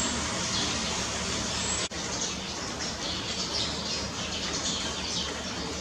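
Steady rain hiss with Eurasian tree sparrows chirping in short, repeated calls. The sound drops out for an instant about two seconds in.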